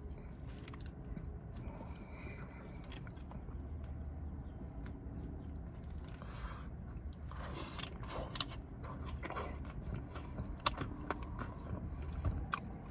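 A person chewing and biting food close to the microphone, with scattered small clicks and crunches over a low steady hum.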